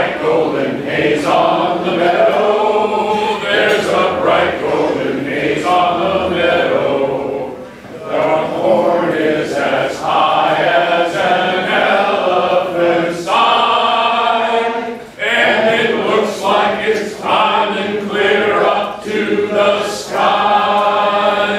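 A roomful of people singing a song together, with a man's voice leading, pausing briefly between lines.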